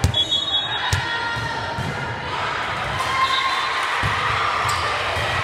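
Volleyball thudding off hands and arms during a rally, with sharp hits at the start and about a second in and another near the end, over steady crowd noise in a gym.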